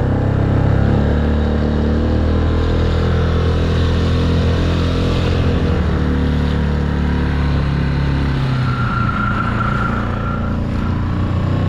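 Small outboard motor on a micro skiff running steadily under way, with the hiss of water off the hull. Its low engine note changes about eight seconds in.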